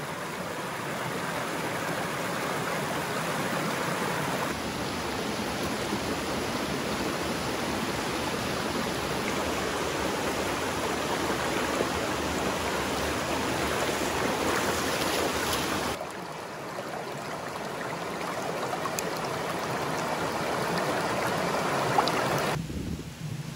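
Steady rushing of a valley stream's water, an even roar with no distinct events; its tone and loudness change abruptly a few times, about four seconds in, about sixteen seconds in and near the end.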